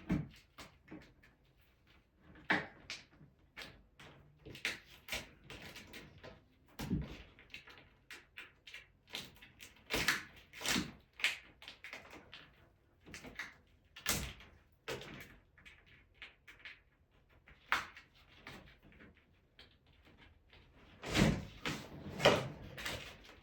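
Irregular knocks, taps and clicks of hand-tool work, scattered throughout, with a few louder knocks near the end.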